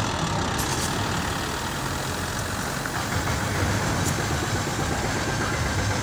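Bitumen distributor truck's engine running steadily while it sprays prime coat, with a steady broad hiss over the engine.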